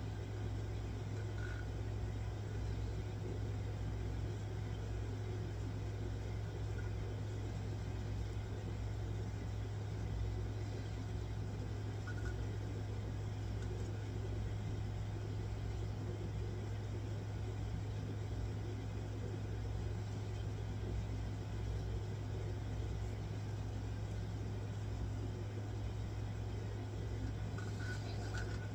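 Steady low hum and rumble with a faint even hiss, unchanging throughout: room background noise, with a few faint brief chirps.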